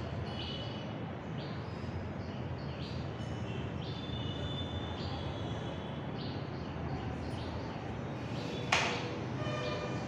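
Small birds chirping off and on over a steady low hum, with a single sharp knock a little before the end.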